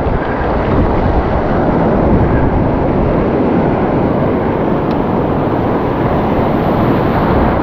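Steady wind on the microphone over the sound of breaking surf.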